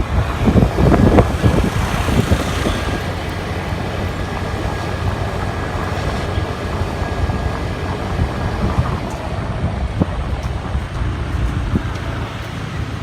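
Steady road and engine noise of a car on the move, a little louder in the first two seconds.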